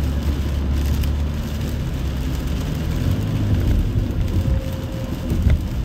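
Steady low rumble of a moving car, with an even hiss over it.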